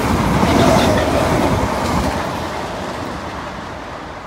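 Class 318 electric multiple unit passing on the line, its wheels clattering over the rail joints. Loudest about a second in, then fading as it moves away.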